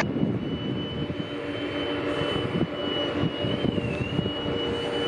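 Jet airliner engines running at an airport: a steady high whine over a low rumble, the whine wavering briefly in pitch a little past halfway.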